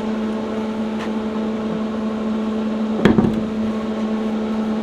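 Steady machine hum with a strong single pitch and its overtones, broken once by a short loud knock about three seconds in.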